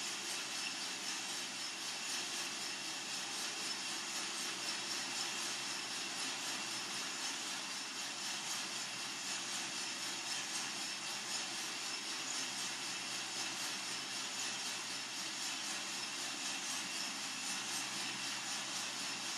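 Coffee-Tech FZ-94 lab roaster running steadily a few minutes into a roast: an even, unbroken hiss and whir from its blower and the beans turning inside it.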